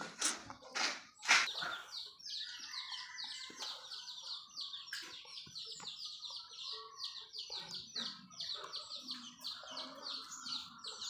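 Small bird chirping in a fast, even run of high notes, several a second, without a break. A few louder short knocks sound in the first two seconds.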